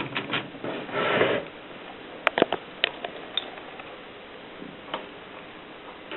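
Erika S manual portable typewriter in use: sharp key strikes in irregular clusters, with a half-second mechanical rasp about a second in.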